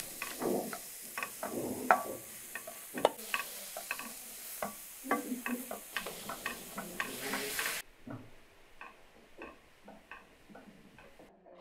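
Ground meat and onions frying in a metal pan on a gas burner, sizzling steadily while a spatula stirs and knocks against the pan with many sharp clicks. The sizzle cuts off suddenly about eight seconds in, leaving a few fainter knocks.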